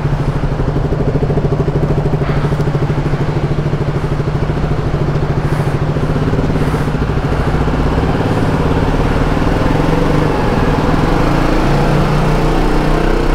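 KTM motorcycle engine running steadily at low road speed, with road noise, as the bike is ridden slowly over rough gravel.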